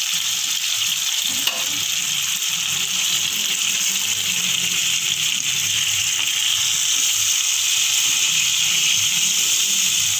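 Masala-coated fish pieces shallow-frying in oil in a non-stick pan: a steady sizzle, with one sharp click about one and a half seconds in as the spatula turns the pieces.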